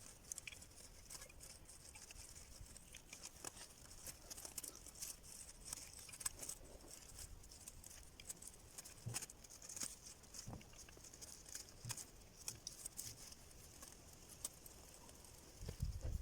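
Faint, scattered ticks and crackles of small metal pieces being handled, irregular and with no steady rhythm.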